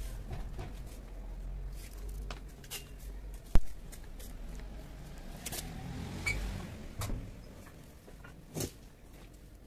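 Low rumble with scattered small clicks and taps from handling. One sharp click, a little past three and a half seconds in, is the loudest sound.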